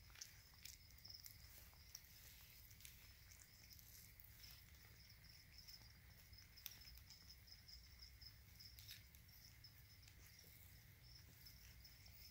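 Faint, steady high chirping of crickets, the feeder crickets kept in the lizard tanks, with a few soft clicks scattered through it.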